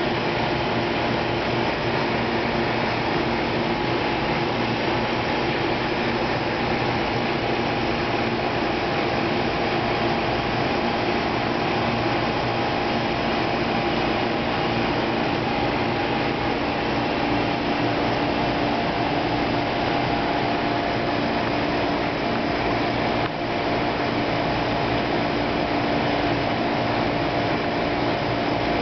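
Steady whir and hum of running reef-aquarium equipment, the pumps and powerheads circulating water, with a couple of steady humming tones.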